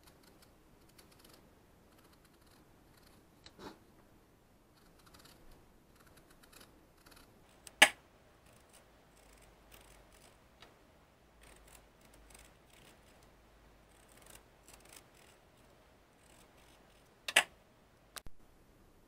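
Kitchen knife paring the rind off a Korean melon held in the hand: faint, irregular slicing and scraping strokes, broken by a few sharp knocks, the loudest about eight seconds in and another near the end.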